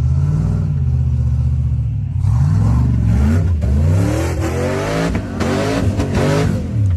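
An off-road vehicle's engine running under load, then revving up and down several times from about two and a half seconds in, with a rushing noise over it.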